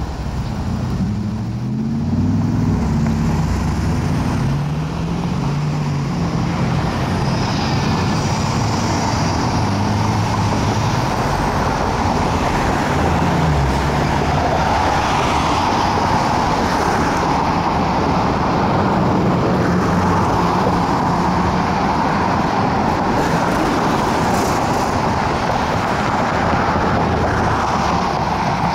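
Road traffic at a signalled intersection. For the first half, vehicle engines hum and shift in pitch. After that, a steady rush of tyres and engines comes from cars passing through.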